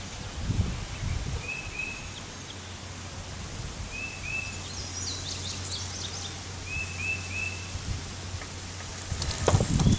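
Wind blowing across the microphone as a steady low rumble, with a small bird repeating quick two- or three-note chirps every couple of seconds. Near the end a stronger gust comes through and the parachute canopy's fabric rustles and flaps.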